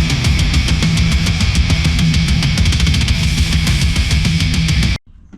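Loud intro music in a heavy rock style, with driving drums and distorted guitar, cutting off abruptly about five seconds in.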